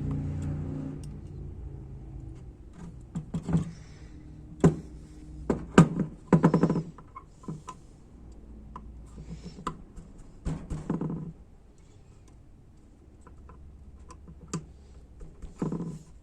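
Small metal clicks and taps as valve body parts (springs, valves and retainers of an A604 transmission) are handled and pressed into place, with a few short hum-like sounds in between and a low steady hum in the first two seconds.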